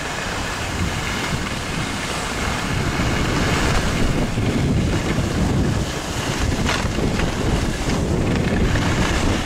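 Wind buffeting the microphone of a moving skier, with the hiss of skis gliding over groomed corduroy snow; a couple of brief sharp clicks about seven seconds in.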